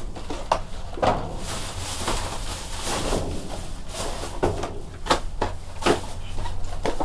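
Hands grabbing cardboard product boxes out of a plastic tray among trash, with a series of knocks and rattles as the boxes are lifted and bumped, over a steady low hum.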